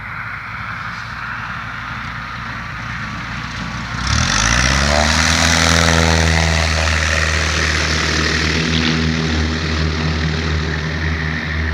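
Cessna Skyhawk's piston engine and propeller running at low power, then about four seconds in the throttle is opened: the engine note rises quickly over about a second and holds steady at full power, as for a takeoff.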